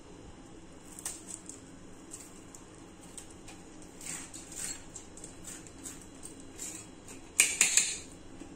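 Kitchen knife slitting green chillies and scraping out the seeds, small scratchy clicks and scrapes, with a louder burst of scraping near the end.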